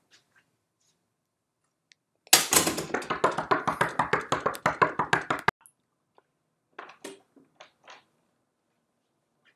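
A loud, rapid series of knocks lasting about three seconds that cuts off suddenly, followed by a few softer taps.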